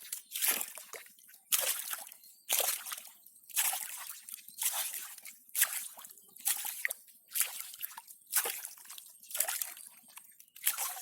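Water sloshing in a regular rhythm, about one slosh a second.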